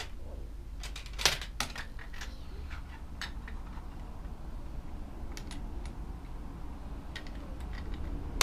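Lego bricks clicking and clattering as they are handled and pressed together: a scatter of sharp plastic clicks, the loudest about a second in, over a low steady room hum.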